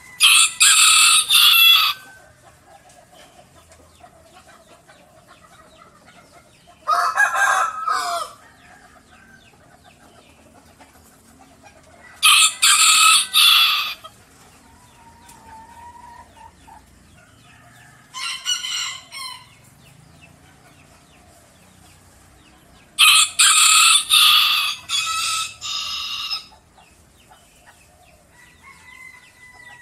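A bantam (dwarf) rooster crowing loudly five times, about once every five to six seconds, each crow lasting one to three seconds.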